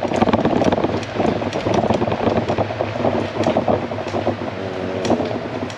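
A 20-inch Caracle-S folding minivelo riding along rough pavement: steady tyre noise with a dense crackle of small knocks and rattles from the bike, and wind on the handlebar microphone.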